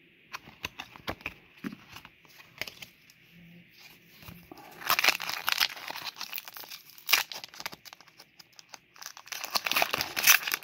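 Foil Pokémon booster pack wrapper crinkling and tearing open in two loud bursts, about halfway through and near the end, with sharp clicks of cards being handled before them.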